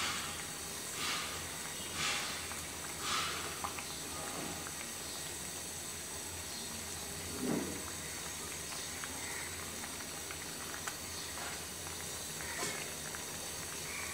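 A pot of jatka (young hilsa) fish curry with potatoes and tomatoes simmering on the stove, with a steady hiss. A few soft swishes of a hand or spoon working in the pot come in the first few seconds.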